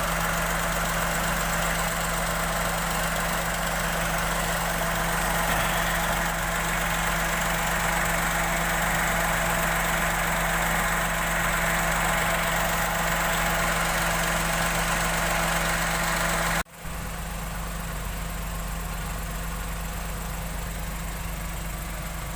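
Suzuki K6A three-cylinder engine idling steadily, with a running noise that is put down to a worn alternator bearing. The sound cuts out for an instant about three quarters of the way through, then carries on quieter.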